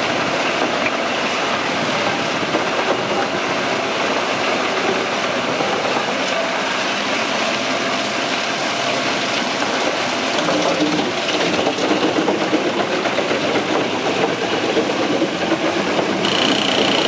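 Large crane-fed wood chipper running under load as logs are fed into it and chipped, a loud steady grinding, crackling roar. It grows louder and rougher from about ten seconds in.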